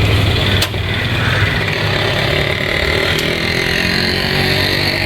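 A motor running steadily with a low, even hum, and a sharp click about half a second in.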